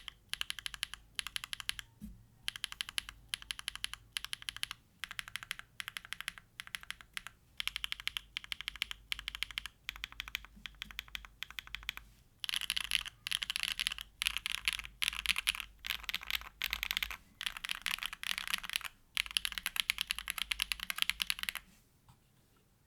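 Typing on a TKD Cycle7 mechanical keyboard with a carbon-fibre plate, case foam, hand-lubed Bsun Raw switches and GMK Grand Prix keycaps: runs of quick keystroke clacks in short bursts. About halfway through the typing gets louder and denser, and it stops shortly before the end.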